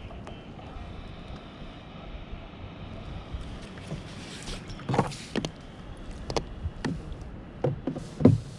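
Steady low wind and water wash around a plastic fishing kayak, with a few short knocks and clatters of gear being handled against the hull in the second half, the loudest one near the end.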